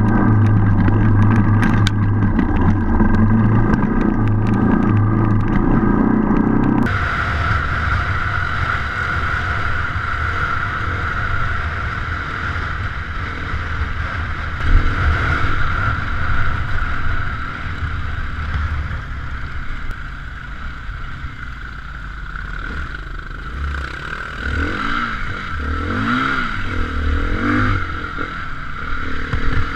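Off-road enduro motorcycle engine running under way as heard from a camera on the moving bike. The sound changes abruptly about seven seconds in, and near the end the engine revs up and down several times.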